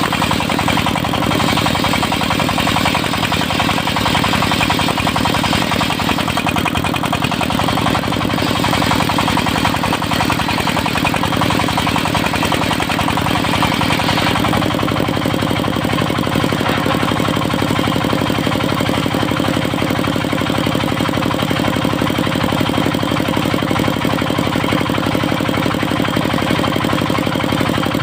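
Engine of a portable circular-saw sawmill running steadily at an even pitch; the sound shifts slightly about halfway through.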